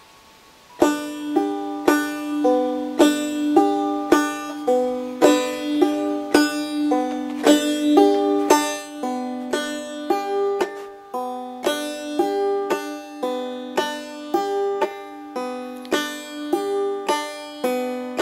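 Five-string banjo played clawhammer style on open strings, starting about a second in: a steady, evenly paced run of plucked notes in which the first string alternates with a thumbed note, first on the fifth string and then dropped to the second string. This is a drop-thumb exercise.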